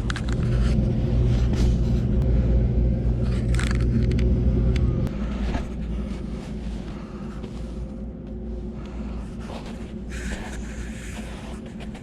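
A steady low rumble, strongest for the first five seconds and then easing off, with a few scattered clicks and scrapes over it.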